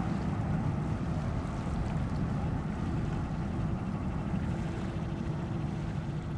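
Jet airliner engines across the airfield, a steady low rumble, mixed with wind on the microphone.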